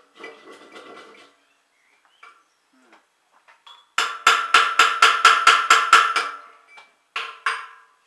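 Hammer blows on the steel shaft of a concrete mixer's drum gear: a quick run of about ten sharp strikes at about five a second, each ringing like struck metal, starting about halfway through, then two more blows near the end.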